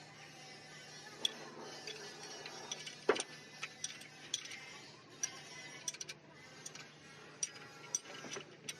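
Metal tools and engine parts clicking and tapping irregularly during hand work on an engine, with one louder knock about three seconds in, over a steady low hum.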